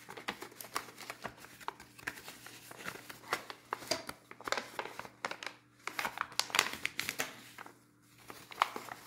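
Sheet of white paper rustling and crinkling in short, irregular crackles as it is bent and folded by hand, with a brief pause near the end.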